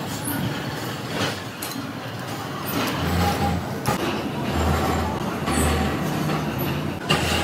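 Hand-held disc grinder working the face of a large metal gear wheel: a steady grinding noise with a low hum underneath and a few sharp clicks.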